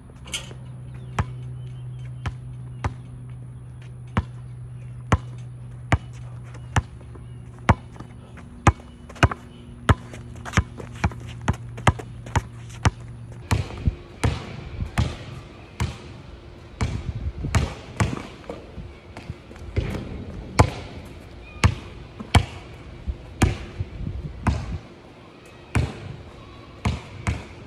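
Basketball bouncing on a hard court: single sharp bounces about once a second, then quicker, denser dribbling with more echo in the second half.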